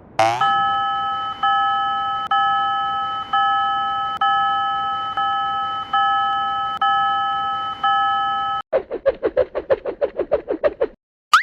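Railroad crossing warning bell sound effect: a bell-like chime struck about once a second, each stroke fading before the next, for about eight seconds after a short sweep at the start. It then switches to a faster pulsing alarm tone at about six beats a second for the last two seconds.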